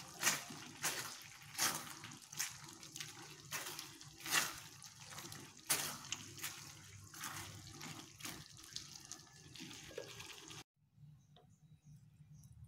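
Silicone spatula stirring a saucy beef and broccoli stir-fry in a nonstick frying pan: wet, sloshing scrapes through the thick gravy about once or twice a second. Near the end the stirring stops abruptly, leaving only a few faint clicks.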